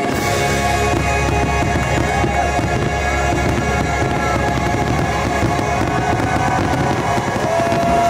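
Rapid barrage of fireworks shells bursting, a dense run of thuds and cracks, over loud show music with a long held note near the end. This is the closing burst of the fireworks show.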